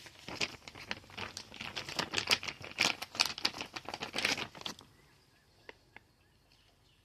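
Rapid, dense rustling and crinkling handling noise for about five seconds that stops abruptly, followed by a few faint clicks.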